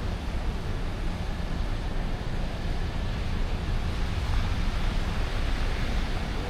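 City night ambience: a steady low rumble of distant traffic under an even wash of background noise.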